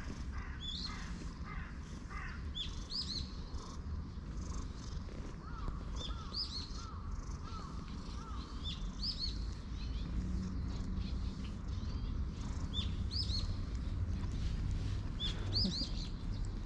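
Wild birds chirping over and over, short high rise-and-fall notes every second or two, with a run of lower, clearer notes about five to eight seconds in. Underneath is a low, steady rumble: the long-haired tabby cat purring as it is stroked.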